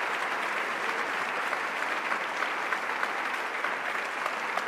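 A church congregation applauding steadily, many hands clapping at once.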